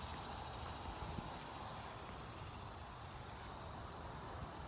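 Insects trilling steadily at a high pitch, over a low rumble.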